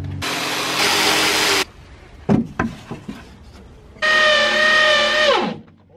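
Power tool at work on wood: a loud burst of cutting noise, a few sharp knocks, then the motor whining at a steady pitch and winding down as it is switched off.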